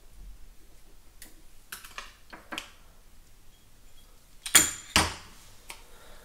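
Light clicks and rattles of small plastic parts and wires being handled, then two sharp knocks about half a second apart, the loudest sounds, as the Sena 30K headset unit and its speaker are set down on the countertop.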